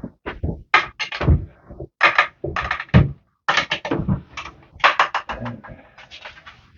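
Spyderco Manix 2 folding knife test-cutting, a quick irregular series of short rasping slicing strokes with some dull knocks from handling, to check how sharp the edge is and whether it has a burr.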